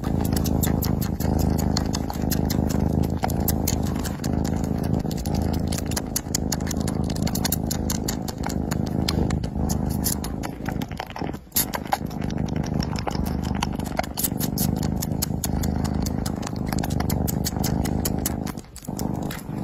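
Kitten purring loudly and steadily while it suckles on a finger, the rumble swelling and easing with each breath, with quick wet sucking clicks over it. It breaks off briefly twice.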